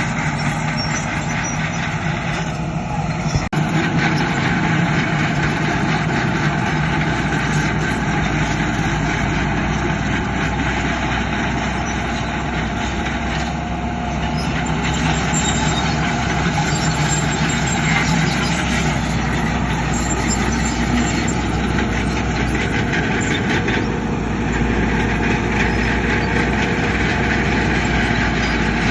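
Heavy diesel earthmoving machinery, a bulldozer and dump trucks, running steadily under work, with one sharp knock about three and a half seconds in.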